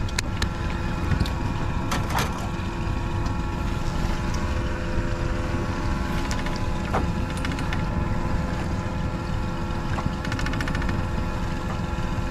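A boat engine idling steadily, a constant hum over a low rumble. A few knocks come in the first couple of seconds, and a quick run of clicks about ten seconds in.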